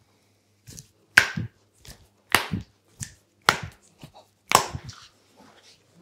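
Massage slaps: hands smacking on skin as a barber works a client's hand and arm, about one sharp slap a second, each followed by a softer thud, with lighter taps in between.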